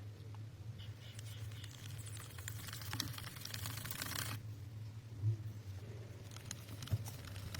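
Rapid dry scratching and crackling with many small clicks for about four seconds, then fainter scattered clicks, over a low steady hum.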